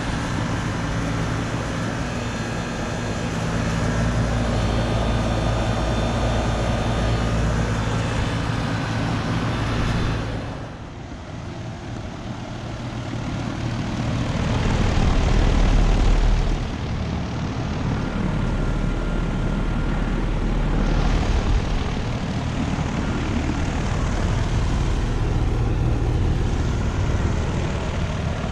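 Outdoor central air conditioner condensing unit running: a steady hum with the rush of its condenser fan. The sound drops suddenly about ten seconds in, then builds back up and settles.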